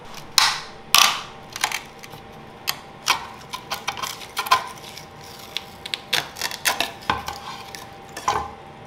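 A routed hardwood board being handled and lifted off a sawdust-covered CNC spoil board: irregular knocks, clatters and scrapes of wood on wood, loudest about a second in.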